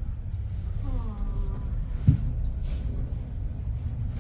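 Steady low rumble inside a moving cable car cabin as it climbs, with a faint falling voice about a second in and a single sharp thump about two seconds in.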